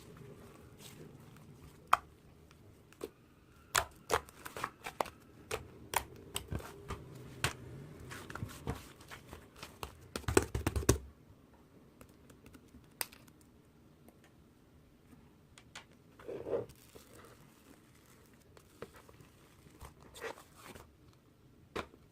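Close handling noises: a run of sharp clicks and taps that thickens into a dense rustling burst about ten seconds in, followed by only occasional taps.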